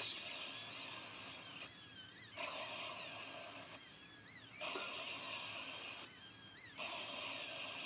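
Electric hand planer trimming the edge of a wooden block panel flush, cutting in four passes of about a second and a half each with a high whine and hiss, the motor running lighter in the short gaps between passes.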